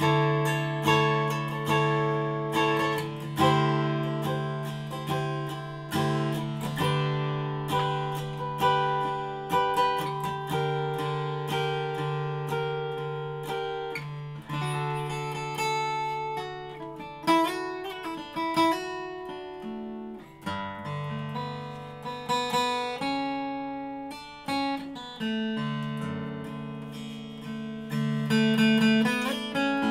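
Solo steel-string acoustic guitar, a Madsen sloped dreadnought with a cutaway, Engelmann spruce top and flamed maple back and sides, played as a piece of music: single picked notes ringing out and decaying over sustained bass notes.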